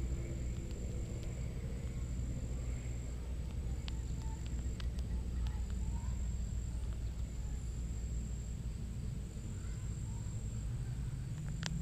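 Steady outdoor background with a low rumble, a thin high buzz that keeps breaking off and resuming every second or so, and a few sharp clicks, several of them close together near the end.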